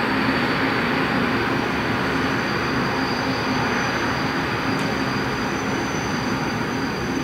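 Electric-hauled freight train running past: a steady rumble of wheels on rail with a constant low hum and a thin, steady high-pitched whine.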